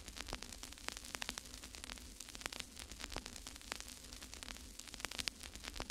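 Faint crackling static: irregular small clicks and pops over a low hiss, with a steady low hum underneath.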